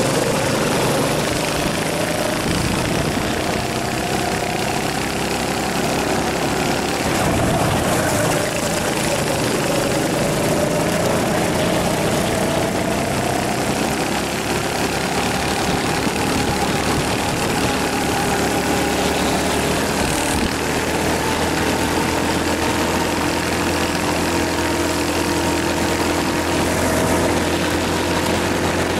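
Rental racing kart's engine heard onboard, its pitch falling and rising as the kart slows for corners and accelerates out of them, over steady wind and road noise.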